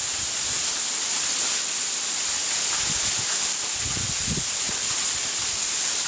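Steady high-pitched hiss of ambient noise in the pit, with low rumbles of wind on the microphone about three and four seconds in.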